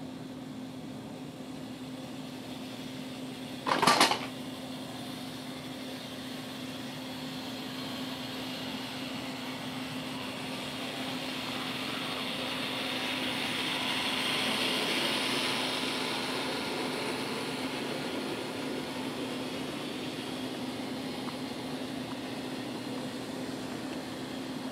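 An N scale model train running on its track: a low mechanical whir and rushing that slowly swells and then eases off, over a steady hum. A short, sharp, loud sound about four seconds in.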